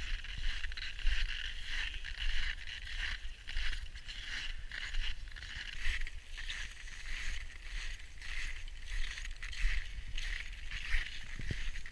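Footsteps crunching and shuffling through deep snow, with clothing rustle and a low rumble of wind and handling on the microphone.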